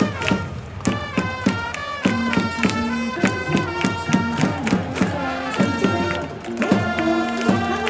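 Music with a quick, steady beat and a bright melody.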